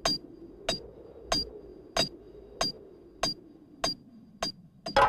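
Metal chisel striking rock in a steady rhythm, about one and a half knocks a second, each with a short high metallic ring. Near the end comes a louder clatter of several quick knocks.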